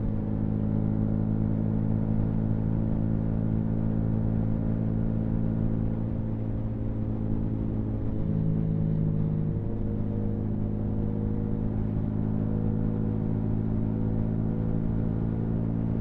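Yamaha MT-125's single-cylinder four-stroke engine running at a steady cruising speed, its pitch holding nearly constant with only a slight drift in the middle.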